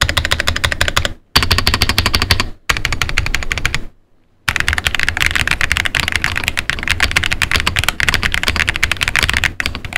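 Fast typing on a Monsgeek M1W V3 mechanical keyboard, fitted with Akko Piano Pro V3 switches, a polycarbonate plate and six layers of dampening foam. The keystrokes come in rapid runs, with a brief pause about four seconds in.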